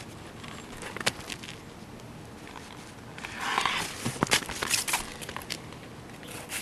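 A stiff roll of rubber roof flashing being handled and uncurled: scattered clicks and crackles, with a short rustle about three and a half seconds in.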